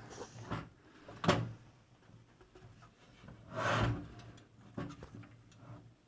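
Power supply being handled and slid into a computer case: a sharp knock about a second in, a longer scraping slide a little past halfway, then a few light clicks.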